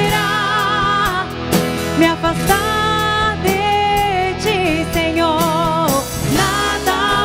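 Worship band playing a slow Christian pop song, a melody line held over sustained chords and bass, its long notes wavering with vibrato.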